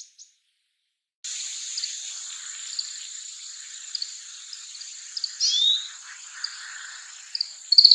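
Oriental greenfinch calls: scattered short, high chirps over a steady high hiss, starting about a second in, with a downward-slurred call about halfway through and a quick cluster of chips near the end.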